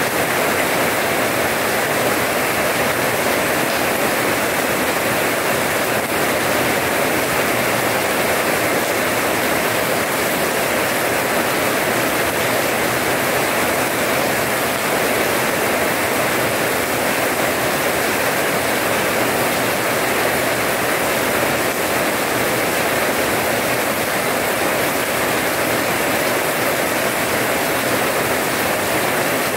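Steady rain falling and splashing on a wet paved courtyard: an even, unbroken hiss of many drops.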